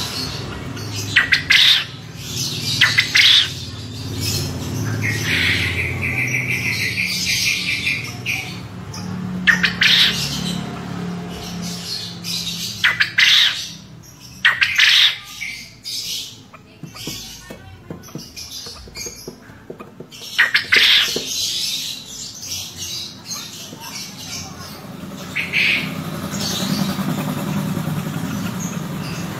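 Male quail calling: loud, sharp chattering calls in short bursts every few seconds, one of them a rapid trill held for a couple of seconds, over a low steady hum.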